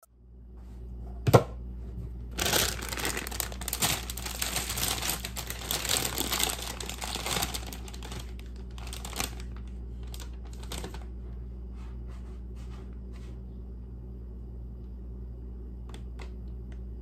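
A plastic bag crinkling as it is handled for several seconds, after one sharp knock about a second in. A few light clicks follow over a steady low hum.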